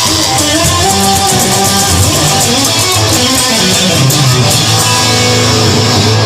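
Rock music with loud, steady guitar playing in an instrumental stretch between sung lines.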